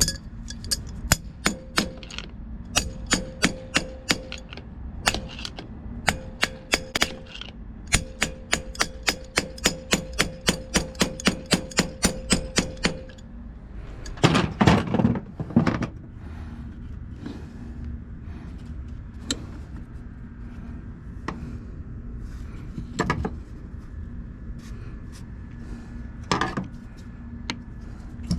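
Hammer blows on a Copeland semi-hermetic compressor during teardown, knocking the crankshaft loose: a fast run of strikes at about three a second for the first half, a few louder blows in a cluster, then single strikes every few seconds.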